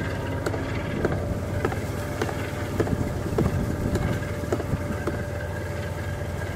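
DF5D diesel-electric locomotive's engine running with a steady low drone as it moves slowly with a coal train. Sharp clicks repeat a little under twice a second through it.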